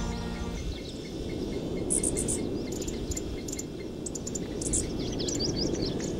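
Birds chirping and twittering over a steady low rush of outdoor noise. A run of short, evenly spaced chirps comes in the first half, sharper high chirps follow, and busier twittering comes near the end. Background music ends about half a second in.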